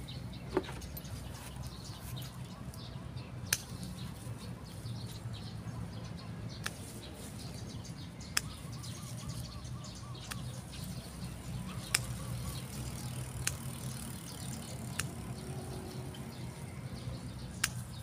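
Hand pruning shears snipping off Golden Duranta shoot tips: a sharp click every couple of seconds, about nine in all, over a steady low background hum.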